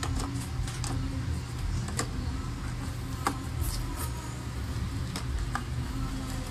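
Eggs set by hand into the holes of a plastic egg tray: several light clicks and taps of shell on plastic at irregular intervals, over a steady low hum.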